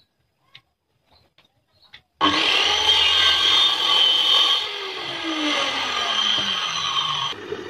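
A power tool cutting wood: it starts suddenly and loud about two seconds in, running with a high whine, and a lower tone falls in pitch over its second half. Near the end it switches abruptly to a quieter, lower steady hum.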